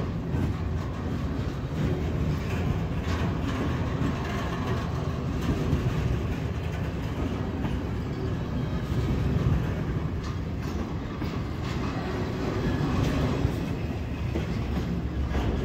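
Intermodal freight train cars rolling past: a steady rumble of steel wheels on rail with scattered clacks, from articulated well cars and then flatcars carrying highway trailers.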